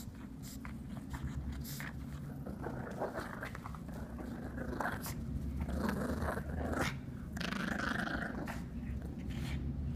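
Pug growling steadily while biting and shaking a plush toy, with scuffing and rustling of the toy against the couch.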